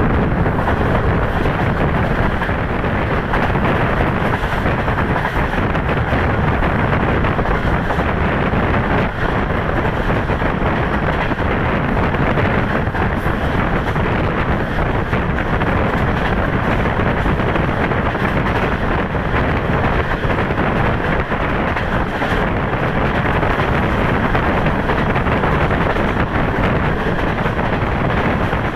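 Steady rush of wind at the open window of a passenger coach running at speed, buffeting the microphone over the rumble of the train's wheels on the rails.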